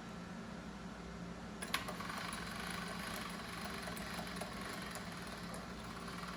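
Pasta roller running as a sheet of pasta dough is fed through it on setting 3, giving a steady mechanical hum with one sharp click a little under two seconds in.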